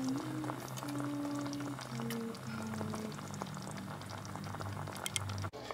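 Creamy herb sauce bubbling and crackling softly as it simmers in a stainless steel pot, under background music of slow held notes. The sound cuts off abruptly near the end.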